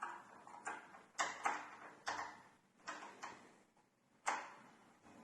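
Irregular sharp clicks and knocks of small door-lock parts being handled and fitted together, about seven in all, with the loudest ones about a second and a half in and again near the end.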